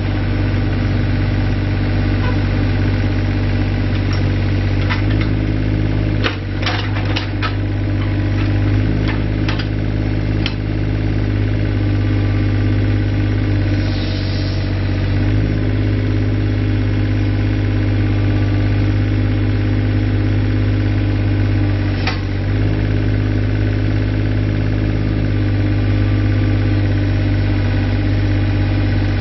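2007 Takeuchi TB135 mini excavator's diesel engine running steadily while the boom and arm are worked, its note shifting several times as the load changes. A run of sharp clicks and knocks comes through in the first ten seconds or so, with one more near the end.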